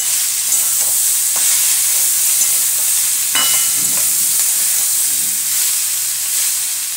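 Diced potatoes and tomato sizzling in hot oil in a metal kadai, stirred with a flat spatula that scrapes against the pan a few times.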